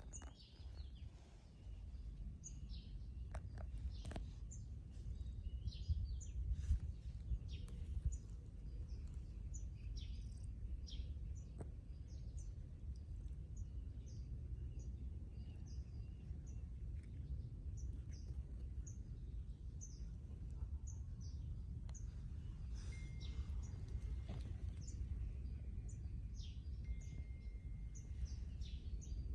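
Small birds chirping and calling in short high notes throughout, over a steady low rumbling background noise.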